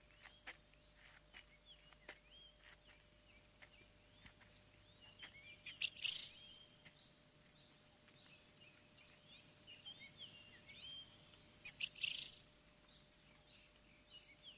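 Faint birdsong: scattered short chirps, with two louder calls about six and twelve seconds in.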